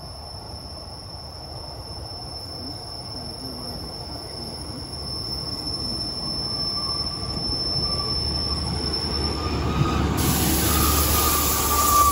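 Class 150 Sprinter diesel multiple unit approaching and running in alongside the platform, growing steadily louder as it nears. About ten seconds in, as it draws level, a hiss and a wheel squeal set in.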